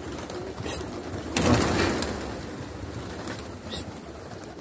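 Pigeons cooing, with a short burst of rustling noise about a second and a half in.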